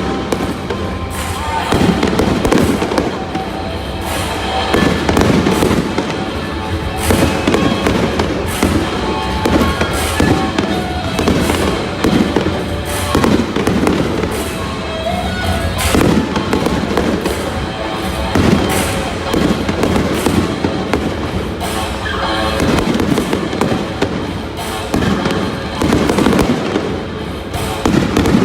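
Fireworks bursting in rapid, irregular succession over music playing on a stadium sound system.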